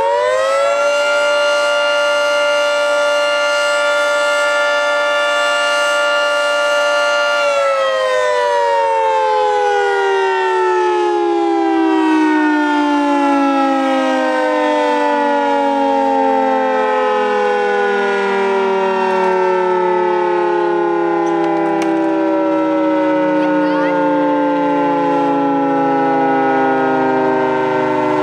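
Federal Signal 3T22A outdoor warning siren sounding the attack signal, a chord of several tones. Its pitch climbs, holds steady and loud for about seven seconds, then slowly winds down over the remaining twenty seconds.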